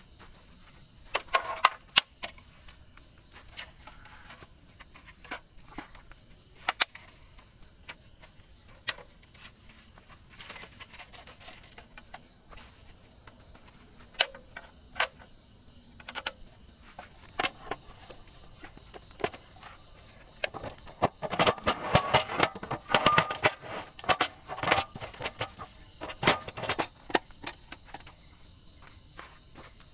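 Irregular sharp clicks and knocks, scattered at first, then coming thick and fast for several seconds past the middle.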